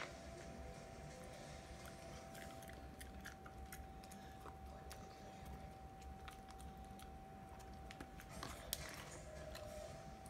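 Maltese dog crunching dry kibble, a series of faint, scattered crisp clicks that bunch up near the end. A faint steady high hum runs underneath.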